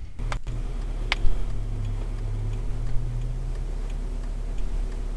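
Car cabin sound from a dashcam recording: a steady low engine hum with faint, fairly regular ticks and one sharper click about a second in.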